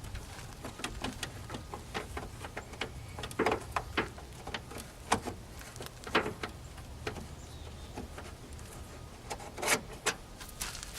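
Irregular plastic clicks, knocks and scrapes of a headlight assembly and its retaining sliders being worked by hand as they are forced back into place, with a few louder knocks scattered through.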